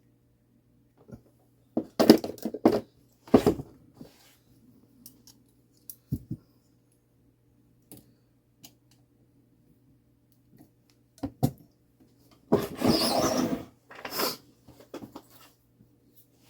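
Pliers and small brass clock parts clicking and clattering as nuts are tightened on a mantel clock movement's plates: scattered sharp clicks, with a denser rattle lasting about a second near the end, over a faint steady hum.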